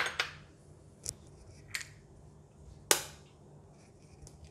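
A handful of sharp taps and clinks, the loudest about three seconds in and ringing briefly: a glass bowl and a metal spoon knocking as an egg is made ready to be cracked, the spoon tapped against the eggshell.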